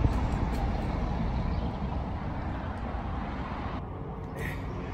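Steady outdoor background noise: a low rumble with a hiss over it, unbroken by any distinct event.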